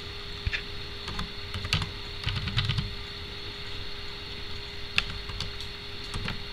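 Slow, irregular keystrokes on an HP laptop keyboard as a command is typed one key at a time: separate key clicks with pauses between them, over a steady faint hum.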